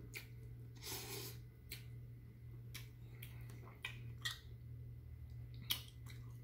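Faint chewing of a mouthful of noodles: small wet mouth clicks and smacks at irregular moments, with a short breathy hiss about a second in, over a steady low hum.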